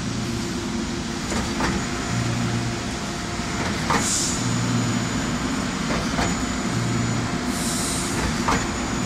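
Putzmeister P730 trailer concrete pump running under load, pumping through 4-inch hose. Its engine hums steadily and swells in a regular cycle about every two and a half seconds, with a sharp clank at each stroke changeover. Two short hisses come through, about four and eight seconds in.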